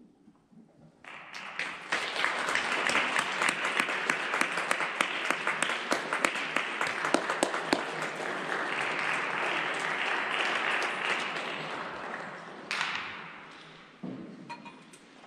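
Audience applauding after a concert band's piece: the clapping starts about a second in after a brief silence, holds steady, then thins and fades out near the end, with a single knock just before it dies away.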